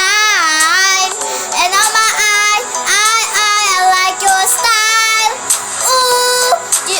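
A high voice singing over backing music, with long wavering runs that glide up and down in pitch in short phrases and no clear words.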